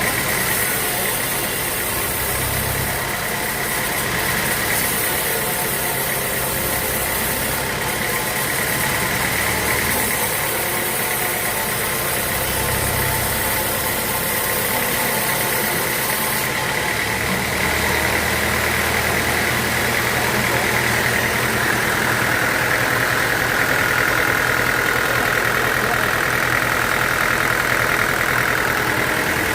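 Sawmill machinery running steadily, with a continuous high tone that grows louder about three-quarters of the way through.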